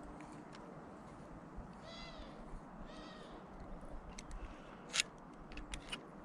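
Two short high-pitched animal calls about a second apart, then a few sharp clicks, the loudest about five seconds in.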